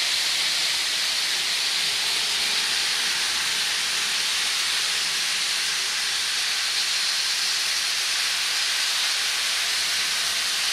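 Several battery-powered Power Trains toy trains running at once on plastic track, their small motors and wheels blending into one steady, even whirring hiss.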